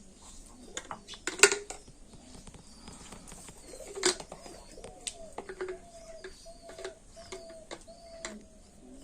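Two sharp knocks, then a bird calling a run of about five short, even, repeated notes in the second half.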